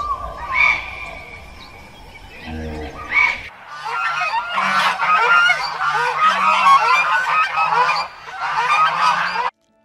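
A large flock of domestic ducks quacking all together in a dense, overlapping chorus of short calls, cutting off suddenly near the end. Before it, in the first few seconds, a few separate short calls sound over a low rumble.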